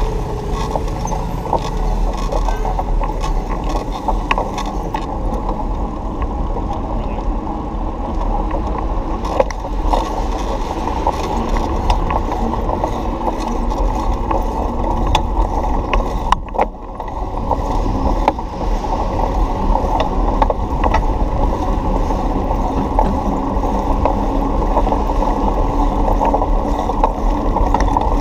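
Riding noise from a moving bicycle heard on the bike-mounted camera: a steady, muffled wind rumble with frequent rattles and clicks as the bike rolls over sidewalk and pavement seams.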